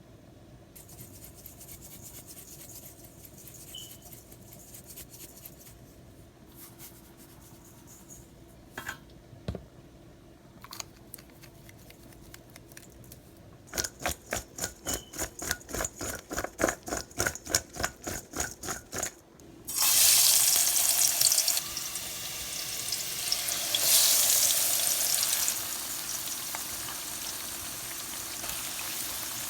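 A quick run of stirring strokes, about four a second for some six seconds. Then a loud sudden sizzle as potato fries go into hot oil, and they keep frying steadily.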